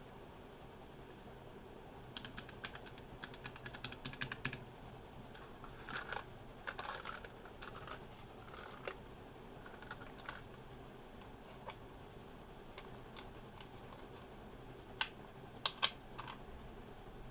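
Typing on a Royal Kludge RK71 mechanical keyboard with brown switches. There is a quick run of keystrokes, then slower scattered key presses, and a few louder clacks near the end.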